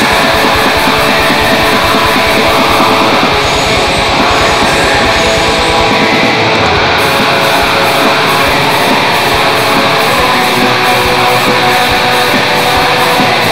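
Heavy metal song with electric guitars over fast drumming. Rapid bass drum beats thin out to sparser hits about seven seconds in.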